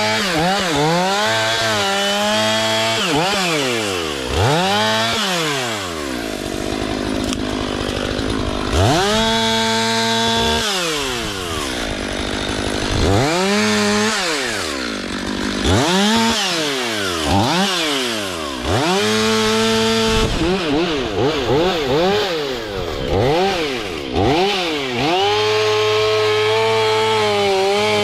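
STIHL MS 500i two-stroke chainsaw revved up and down over and over, dropping back to a steady idle between runs, with stretches of cutting wood.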